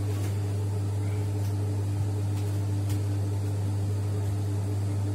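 Steady low electrical hum, as from an electric motor left running, with a few faint clicks over it.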